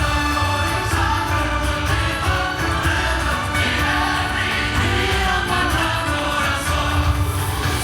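Fireworks-show soundtrack music over loudspeakers, with a steady beat and sung vocals.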